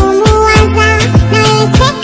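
Afrobeat-style pop song sped up and pitched high, chipmunk-style: a steady kick-drum beat about twice a second under sustained bass notes and a high-pitched melody.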